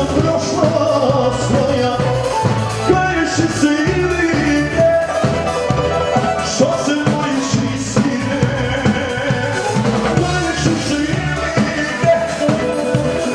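Live band playing a sevdalinka song: keyboards over a drum kit keeping a steady beat.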